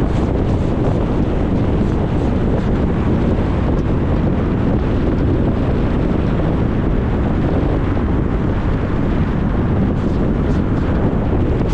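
Steady road and wind noise of a moving car: a dense, even rumble with no distinct events.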